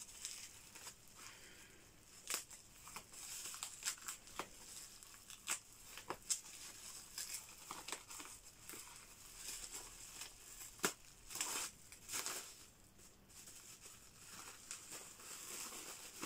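Plastic bubble-wrap packaging crinkling and tearing as it is pulled open by hand, with irregular sharp crackles.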